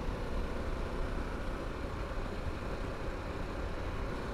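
Harley-Davidson Pan America's V-twin engine running steadily at about 60 mph, mixed with wind and road noise.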